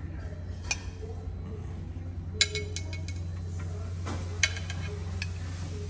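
Metal serving tongs clicking and clinking against an idli steamer and ceramic plates as idlis are served: scattered sharp clinks, with a quick cluster about two and a half seconds in. A steady low hum runs underneath.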